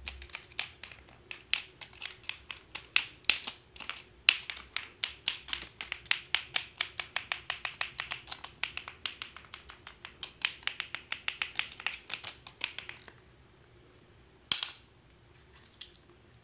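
Lato-lato clacker toy: two plastic balls on strings swung so they strike each other in a rapid, regular clacking of several knocks a second. The clacking stops about 13 seconds in, followed by one sharp loud clack and a couple of faint ones near the end.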